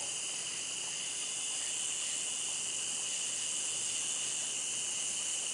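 Night insects chirping in a steady, unbroken chorus, high-pitched and even.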